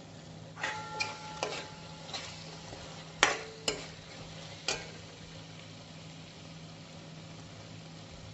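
Metal spoon stirring spiced raw banana curry in a metal kadhai, scraping and knocking against the pan about six times with short metallic rings, the loudest knocks a little past three seconds in.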